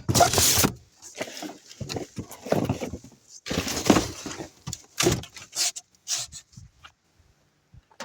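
Irregular clattering and knocking of junk being shifted around while picking through a dumpster, with the loudest clatters about half a second in and again around four and five seconds.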